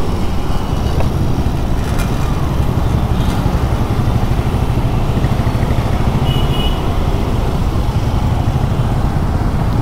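Suzuki scooter riding slowly through city traffic: a steady low rumble of engine, road and wind on the riding camera's microphone, with the traffic around it.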